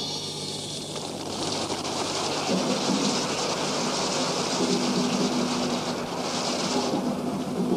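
Audience applauding, a dense even clatter of many hands clapping.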